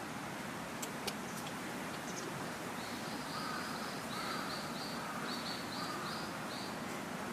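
A run of about a dozen short, high animal calls, roughly three a second, starting about three seconds in, over a steady outdoor hiss, with a few sharp clicks about a second in.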